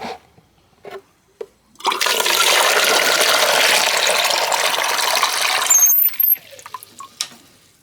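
Water running hard into a container for about four seconds, starting about two seconds in and cutting off abruptly; a few small clicks come before it.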